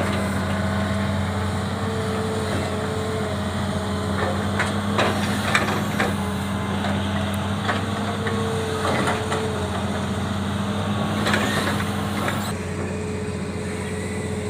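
Excavator's diesel engine running steadily under load, with scattered knocks and clatter from the machine working through stump and root debris.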